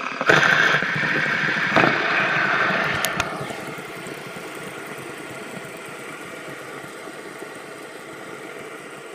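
Fidget spinner whirring on its bearing, flicked with a few sharp clicks in the first three seconds, then spinning on steadily and more quietly as it slows.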